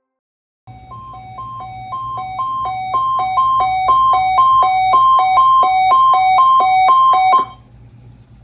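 NOAA Weather Radio test alert tone: a high-low two-pitch beeping that switches pitch a few times a second. It grows louder over the first few seconds, then cuts off suddenly, leaving a low steady hum of the radio channel.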